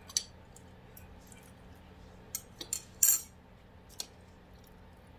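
Cutlery clinking against dishes during a meal: about six short, sharp clinks, a cluster in the middle with the loudest a little after three seconds in.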